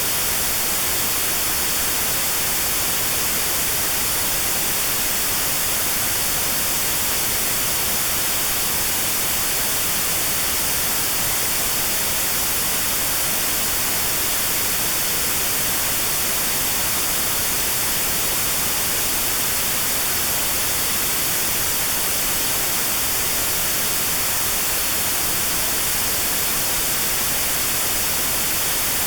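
Synthetic white noise, steady and unchanging, with a narrow band around 4 kHz cut out: notched sound therapy aimed at 4 kHz tinnitus.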